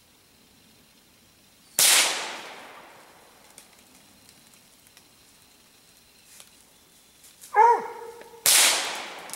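Two gunshots about seven seconds apart, each a sharp crack with a long fading echo, fired at a raccoon treed up in the branches. A dog gives a short bark just before the second shot.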